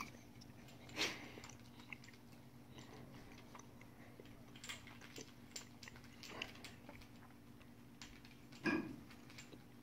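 Kittens playing: faint, scattered scratching and scuffling of paws and claws on carpet and floor, with a louder short knock about a second in and another near the end.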